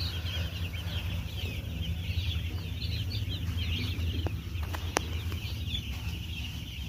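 Dense chorus of high, rapid peeping from a shed full of two-day-old broiler chicks, many calls overlapping without pause. A steady low hum runs beneath, and there is a single sharp click about five seconds in.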